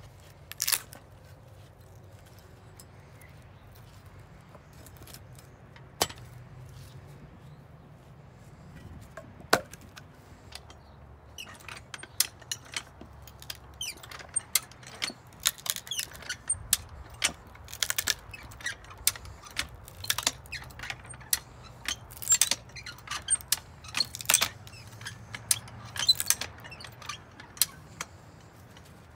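Hi-Lift farm jack being worked by its handle, its steel climbing pins clacking on the notched bar with each stroke as it presses a log against a splitting wedge. There are a few single clacks at first, then a quick, uneven run of clacks through the second half.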